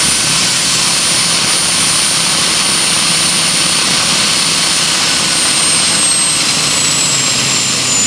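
Small model gas-turbine engine of a quarter-scale radio-controlled UH-1C Huey helicopter whining with a steady high hiss while the helicopter sits on the ground with its rotors turning. About five seconds in, the high whine starts to fall in pitch as the turbine slows.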